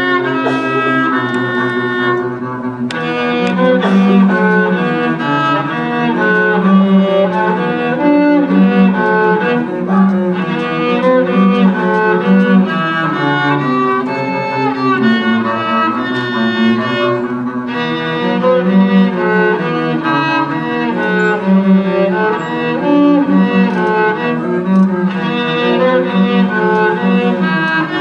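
Violin and cello duet: the violin plays a moving melody over a sustained cello line.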